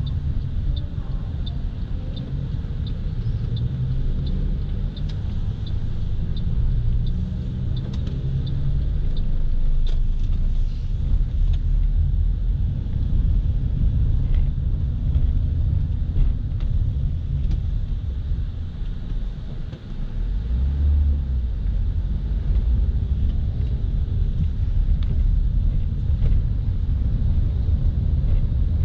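Low rumble of a car's engine and tyres heard from inside the cabin while driving slowly. A light, regular ticking about twice a second runs through the first nine seconds or so, then stops.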